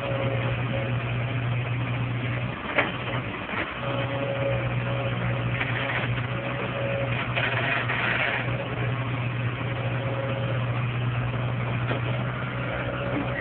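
Komatsu tracked excavator's diesel engine running steadily while the machine digs, with a faint on-and-off whine. A single sharp knock comes about three seconds in.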